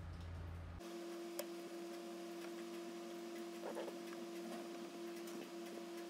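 Small scattered clicks and taps of metal tweezers and a cardboard egg crate being handled in a plastic bowl, over a steady humming tone that comes in about a second in.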